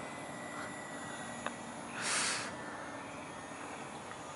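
Faint, steady whine of an electric radio-controlled model airplane flying high overhead. About two seconds in, a short burst of loud hiss stands out.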